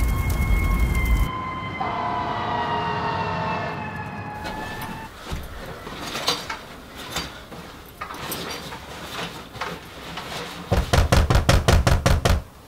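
A siren wailing with its pitch slowly falling, dying away about five seconds in. It is followed by scattered knocks and rustles of things being handled, and a quick run of sharp knocks near the end.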